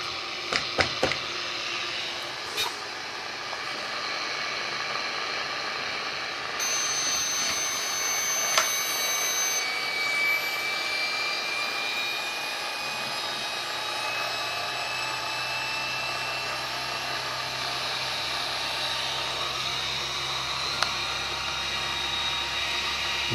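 Electric drive motor of a 1/4-scale RC motorbike running on a bench power supply, spinning the rear wheel through the chain, with a faint whine that slowly rises in pitch. Its speed keeps climbing because, as the owner suspects, the controller board isn't controlling the motor. A few clicks near the start.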